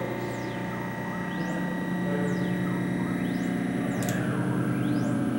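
Synthesized electronic drone from a knob-controlled audiovisual installation: a steady low hum with faint high tones that sweep up and down in turn, roughly once a second, and a sharp click about four seconds in.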